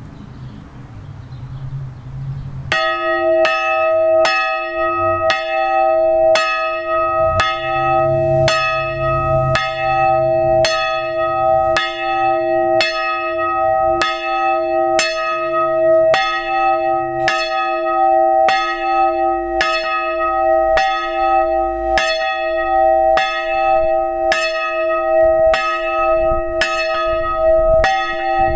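Small iron hard-cast (Eisenhartguss) church bell from 1921 by Schilling & Lattermann, strike note e'', being rung by hand and swinging. After a low rumble, the clapper starts striking about two and a half seconds in, then strikes steadily about one and a half times a second, each stroke ringing on into the next.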